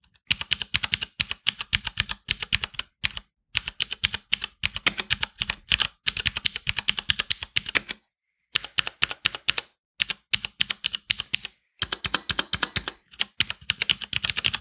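Typing on a WASD VP3 61-key mechanical keyboard with Cherry MX Brown switches and no O-ring dampeners fitted: quick runs of keystroke clacks with short pauses between them.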